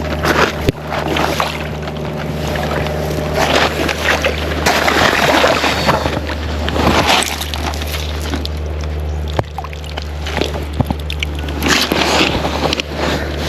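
Water sloshing and splashing close to the microphone, coming and going unevenly, over a steady low rumble.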